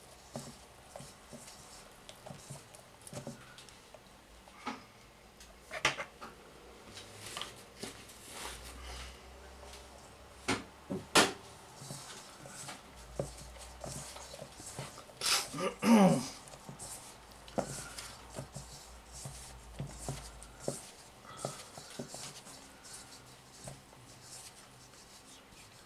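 Hands kneading pastry dough in a mixing bowl: irregular soft slaps, squelches and knocks against the bowl. The loudest is a scrape with a pitch that slides down, about sixteen seconds in.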